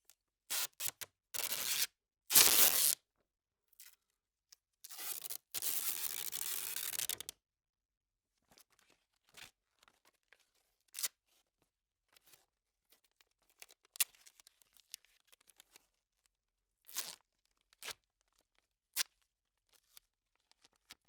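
Duct tape being ripped. There are several short, loud rips in the first three seconds, then one long pull of about three seconds. After that come quiet crackles and a few short, separate rips.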